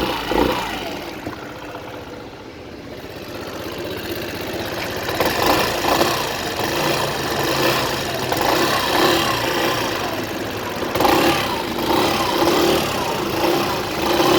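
Yamaha X-Max 125 scooter's single-cylinder four-stroke engine running cold, with a regular pulsing noise in its running that the owner finds suspect. The sound dips quieter early on, then grows louder again.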